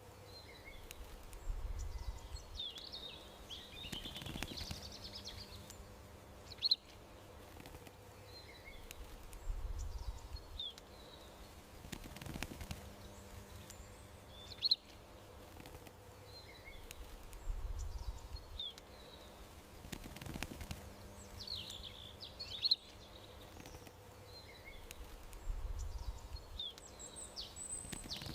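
Songbirds chirping and calling in a garden, a sharp short call standing out about every eight seconds, over a faint steady hum.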